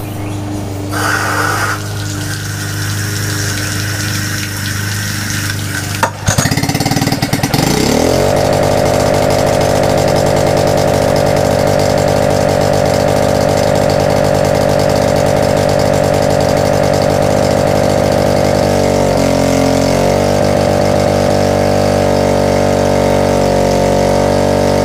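2010 Yamaha F6 outboard's single-cylinder four-stroke engine pull-started on choke, catching on the first start about six seconds in. It revs up, settles into a steady run, and briefly dips in speed and recovers about twenty seconds in. This is its first start after sitting unused for a long time.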